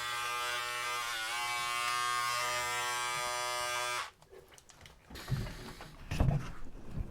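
Electric hair clippers buzzing steadily, the pitch dipping briefly about a second in as the blades load up while cutting hair, then switched off about four seconds in. A few soft knocks and rustles follow as the clippers are handled.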